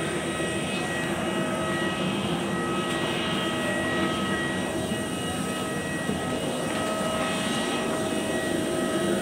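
Steady noise of a parked jet airliner with its systems running during boarding: an even rush of air with several high, steady whining tones.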